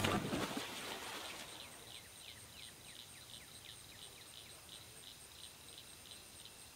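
The last notes of background music ring out and fade in the first second. Then faint insects chirp: a steady high trill, and a slower pulsed chirp about three times a second, with a few short falling chirps early on.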